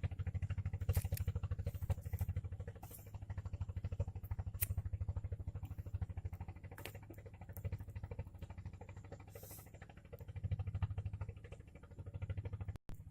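A small engine running steadily with a fast, even low pulse, with scattered faint clicks over it; the sound drops out for an instant near the end.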